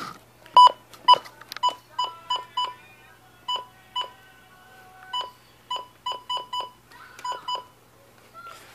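Buttons being pressed on a Midland WR100 weather radio. Each press gives a click and one short, high key beep, about fifteen presses at an uneven pace.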